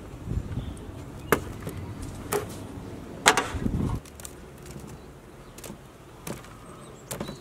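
Metal cookware and vegetables being set down and handled on a wooden table: a series of separate sharp knocks and clanks, about six in all, the loudest a little past three seconds in.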